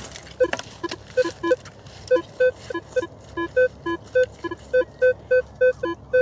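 Metal detector sounding short beeps at two alternating pitches, repeating irregularly about two to three times a second as the coil passes over a target. The detector reads the target as 21, a signal the detectorist considers a little false.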